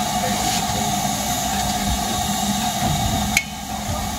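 Steam-hauled passenger train's coaches rolling slowly through a station, wheels rumbling and knocking over the rail joints. There is a sharp click about three and a half seconds in, after which it is briefly quieter.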